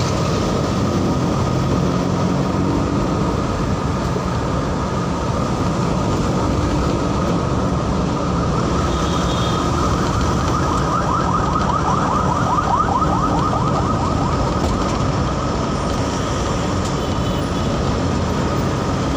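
Steady road and engine noise of a vehicle driving in city traffic, with a steady high whine running through it.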